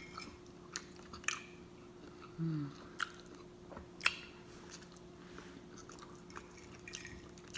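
A person chewing food close to the microphone with open-mouthed smacking: scattered sharp wet smacks, the clearest about three and four seconds in, and a short low 'mm' hum about two and a half seconds in.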